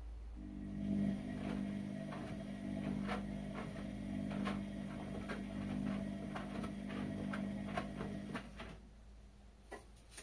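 Whirlpool washing machine's motor running with a steady hum and many irregular light clicks, stopping about eight and a half seconds in; a couple of clicks follow in the pause.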